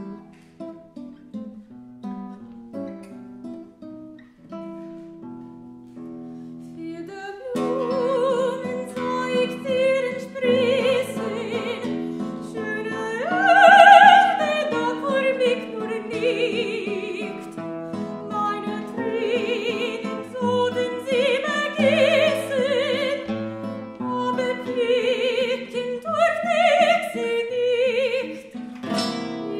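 Classical guitar plays plucked notes alone for several seconds, then a singer enters in classical, operatic style with vibrato, accompanied by the guitar. The loudest moment is a held high note about halfway through.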